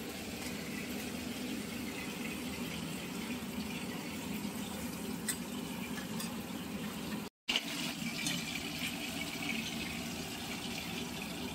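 Rui (rohu) fish pieces frying in hot mustard oil in a kadai: a steady sizzle with scattered small spatter ticks. The sound breaks off briefly about seven seconds in and comes back slightly brighter.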